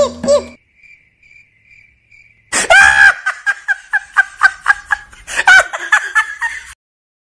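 High-pitched laughter: a quick run of 'ha-ha' bursts, about four a second, that stops abruptly near the end, after a brief vocal sound at the start.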